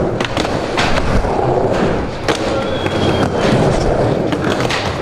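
Skateboard wheels rolling on a wooden mini ramp, with sharp clacks of the board and trucks striking the ramp several times as the skater rides and tricks on its lip.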